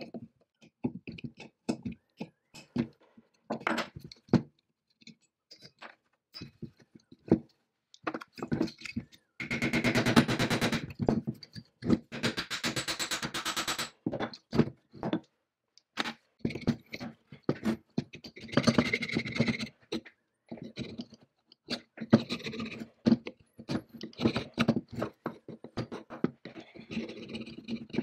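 Workshop handling sounds: scattered clinks and knocks of metal parts and hand tools. About ten seconds in there are a few seconds of fast, rattling clicks, and there is another short noisy spell a little later.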